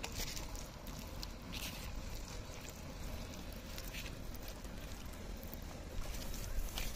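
Hands working a thick, wet spice paste into a whole raw chicken on a banana leaf: soft, irregular squelching and rustling over a steady low rumble.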